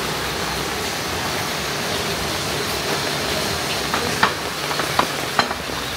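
A steady, even rushing hiss, with a few light clicks and knocks in the second half.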